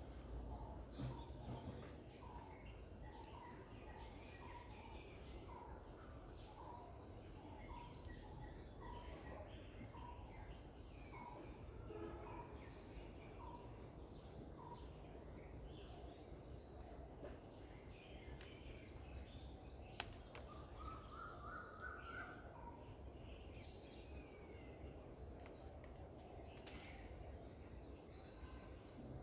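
Faint garden ambience: a bird repeats one short call about once a second through the first half, while other birds chirp now and then. A steady high insect drone runs underneath, with a pulsing insect trill above it.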